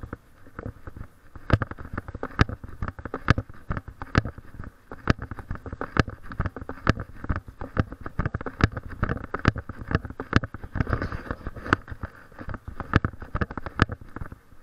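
Footsteps of someone walking on a concrete sidewalk, heard through a camera worn by the walker. A sharp click lands roughly once a second in step with the stride, over steady rustling, small ticks and a low rumble from the camera jostling.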